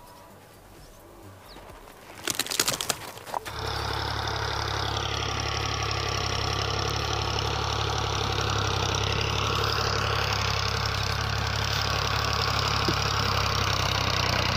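Small motor of a homemade miniature tractor running steadily with an even hum, starting suddenly about three and a half seconds in after a few sharp clicks.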